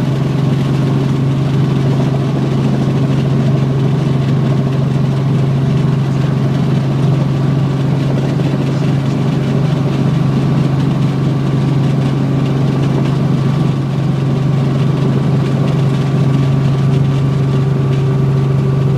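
Helicopter engine and rotor running steadily on the ground after landing, heard from inside the cabin: an even low drone with fainter steady higher tones above it.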